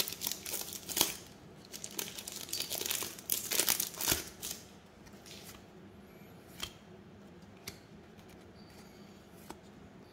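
Trading-card pack wrappers crinkling as packs are handled and opened. The crinkling is dense for about the first four seconds, then dies down to a few faint clicks.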